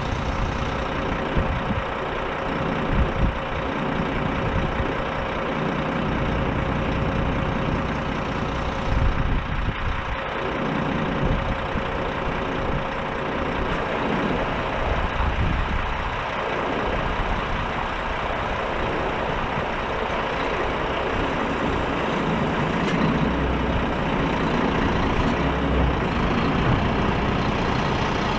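Renault Kerax 380 DXi truck's six-cylinder diesel engine idling steadily while the truck stands still.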